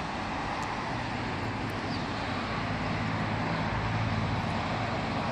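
Steady road traffic noise, a low hum of car engines and tyres that swells slightly about four seconds in.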